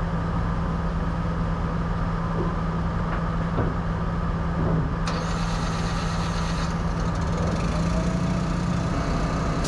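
Semi truck's diesel engine running steadily, a low drone, with a hiss added for about two seconds around the middle and a slight change in engine pitch near the end.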